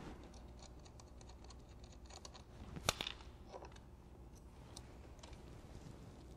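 Faint clicks and scrapes of the main positive cable's ring terminal being worked off a battery post by hand, with one sharper metallic click about three seconds in.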